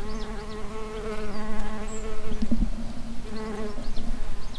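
A flying insect buzzing close by, its pitch wavering slightly, dropping away near the end. Small birds chirp faintly in the background.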